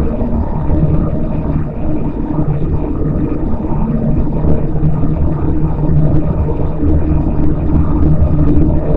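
Audio heavily distorted through the 4ormulator V999 and Vocodex effects: a loud, dense, low drone made of steady pitched bands with a fast flutter, robotic rather than natural.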